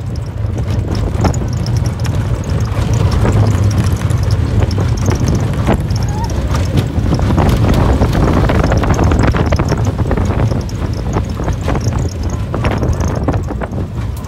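Slinky Dog Dash roller coaster train running along its steel track: a steady low rumble of the wheels with scattered clacks, and wind rushing over the microphone.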